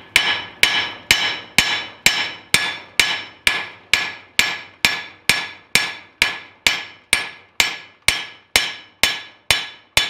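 Ball-peen hammer striking the welded face of an anvil in a steady rhythm, about two blows a second, each blow ringing briefly and dying away before the next. The blows are peening down freshly welded beads on the anvil's face.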